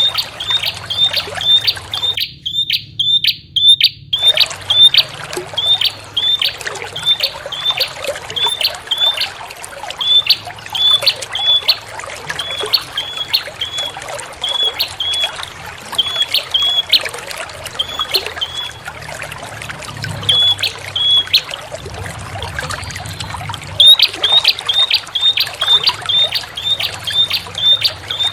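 Prinia (prenjak) calling in a rapid series of short, sharp, high chirps. The chirps slow into groups of two or three midway, pause briefly, then quicken again near the end, over a steady trickle of running water.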